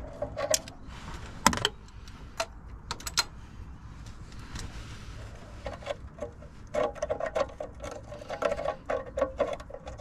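Socket ratchet clicking in quick runs as a small bolt is worked loose, with a few sharp metallic knocks of tools against the engine in the first few seconds.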